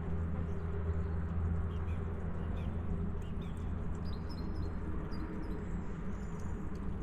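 Small birds chirping now and then over a steady low rumble, with faint footsteps.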